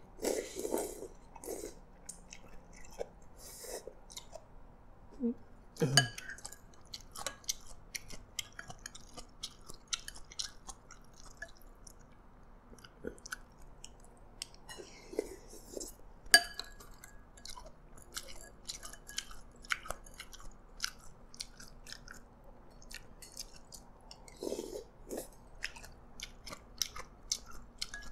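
A person chewing and slurping noodles and soup, close to the microphone, with many small wet clicks and a few short slurps. A couple of sharper clicks stand out, about six seconds in and again around the middle.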